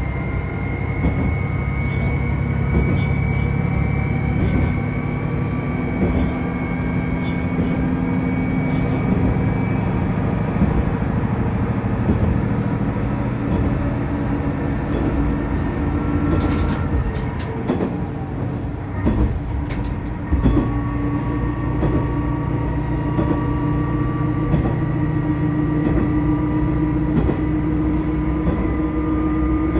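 Tosa Kuroshio Railway 8000 series diesel railcar running, heard from inside the car: a steady engine and transmission drone over rolling wheel noise. About two-thirds of the way through come a few sharp clicks, then the engine note changes and climbs slowly.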